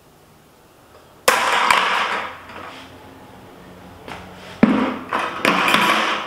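A weighted plastic bucket crashes onto a concrete floor about a second in, when the 12-pound-test monofilament line holding it breaks, its contents clattering for about a second. A second loud knock and clatter follows as the bucket is set down on the concrete again.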